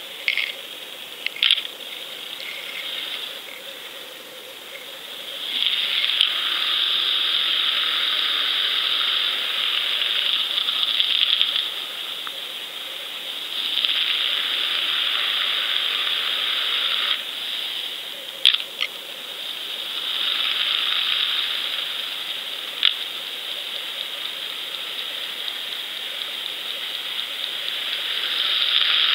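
Underwater noise heard through a GoFish camera's sealed housing: a muffled hiss that swells and fades in stretches of several seconds, with a few sharp clicks.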